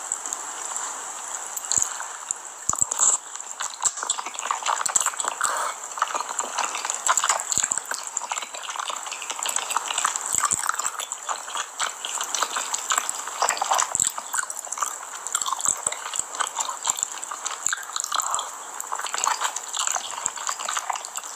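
Close-miked eating sounds: wet slurping and chewing of cheesy noodles in a thick cream sauce, full of small sticky mouth clicks.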